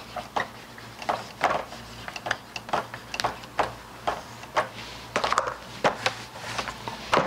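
Dry-erase marker writing on a whiteboard: a quick series of short strokes as letters are written.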